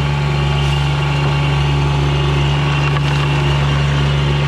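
A motor running steadily at an even pitch, giving a strong low hum with a few steady tones above it.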